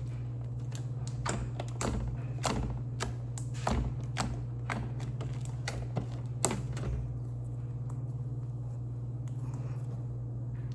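Sticky homemade slime being kneaded and pulled in the hands, giving irregular sharp clicks and snaps that thin out after about seven seconds. A steady low hum runs underneath.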